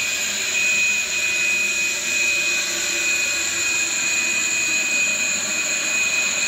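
Aircraft auxiliary power unit, a small gas turbine in the tail cone, running steadily on the ground with a loud, even, high-pitched whine.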